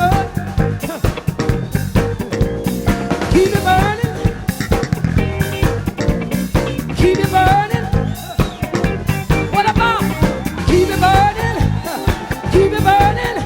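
Live funk-soul band music: drum kit, bass and guitar playing a steady groove, with gliding melodic lines over it.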